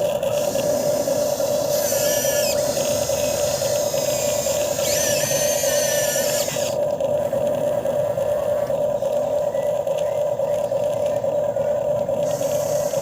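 RC excavator running with a steady motor whine. Two short wavering squeals come about two and five seconds in.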